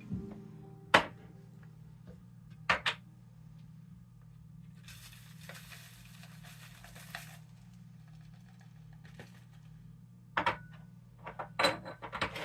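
Scattered sharp clicks and taps, a few seconds apart, with a rustle lasting about two seconds in the middle, over a steady low hum.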